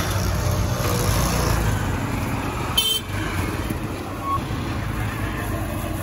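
Street traffic noise: vehicle engines rumbling steadily, with a short sharp high-pitched sound just under three seconds in and a brief tone a little past four seconds.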